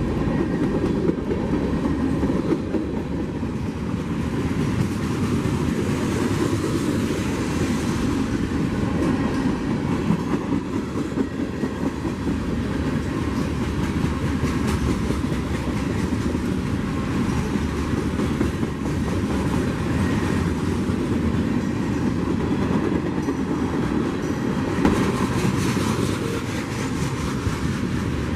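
Freight train cars rolling past with a steady rumble, their wheels clicking over the rail joints.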